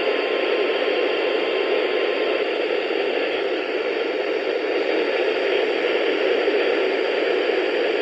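Steady radio static hiss from a weather radio receiver, cutting off suddenly at the very end.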